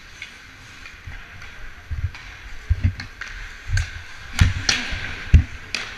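Ice hockey skates scraping across the ice, with dull low thumps and several sharp clacks of sticks on the puck and ice in the second half. The loudest thump comes just over five seconds in.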